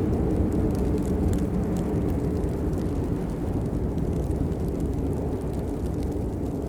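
Steady rain: a dense, low rushing noise with faint scattered drop ticks above it.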